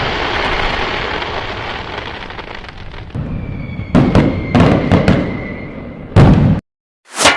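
Explosion and fireworks sound effects: a big blast dying away over about three seconds, then a string of sharp cracks and pops and a last sharp bang that cuts off suddenly, followed by a short swish near the end.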